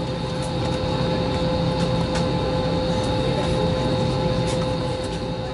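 Airbus A320 jet engines heard from inside the cabin, a steady whine over a rushing hum that builds during the first second and then holds loud, typical of engines spooling up for the takeoff roll.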